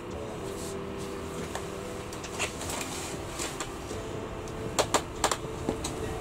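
Scattered sharp clicks and taps of ice-fishing rods and a spinning reel being handled over a bucket, over a steady low hum. A quick cluster of clicks comes about five seconds in.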